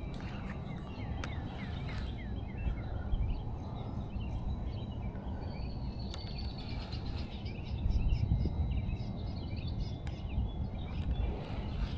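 Birds chirping and calling, with a run of quick falling chirps near the start, over a steady low rumble of outdoor noise.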